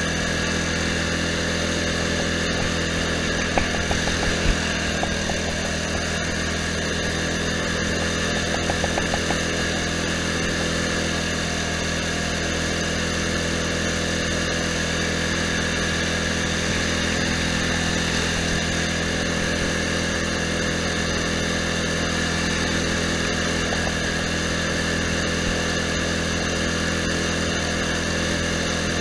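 Poulan Pro riding lawn tractor's engine running steadily while driving along, with a few brief knocks about four and nine seconds in.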